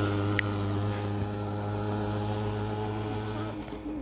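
A motor vehicle's engine running steadily with an even, low hum, its level dropping about three and a half seconds in.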